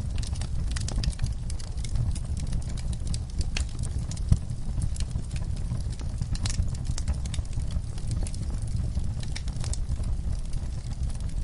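Log fire burning, with a low steady rumble under frequent crackles and snaps of the burning wood, and one louder pop about four seconds in.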